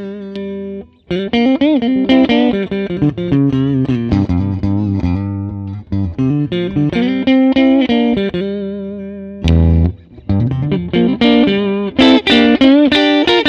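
Harley Benton SC-DLX Gotoh electric guitar with Tesla split-coil pickups, played through a Hotone Ampero One modeller on a clean tone. It plays a melodic line of single notes with bends and vibrato, and a low note is struck about nine and a half seconds in.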